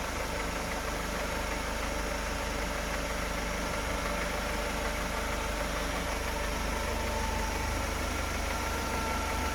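Car engine idling steadily, with a low even hum.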